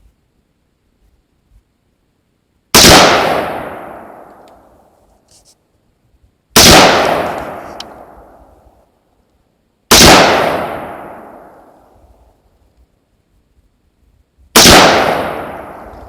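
Four rifle shots fired slowly one at a time, a few seconds apart, each followed by a long echo that fades over about two seconds: deliberate aimed fire for a group on a target.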